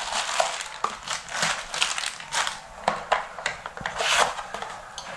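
Plastic bags and cardboard packaging being handled: irregular rustling, crinkling and scraping, with a louder cardboard scrape about four seconds in.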